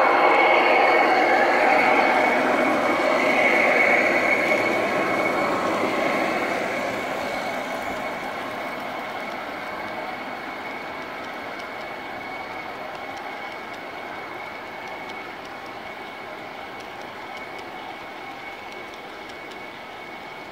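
Large-scale garden model train running past: the Santa Fe SD40-2 and SD45 model diesel locomotives and a string of tank cars rolling on the track, with a steady high whine through it. It is loudest for the first few seconds while the locomotives pass, then fades as the tank cars follow.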